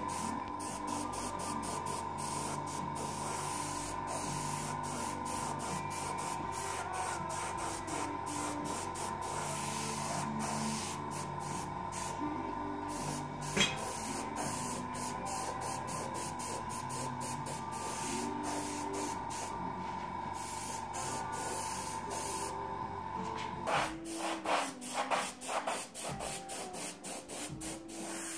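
Airbrush spraying paint in a steady hiss over a steady high whine. About 24 seconds in, the whine stops and the spray comes in short spurts.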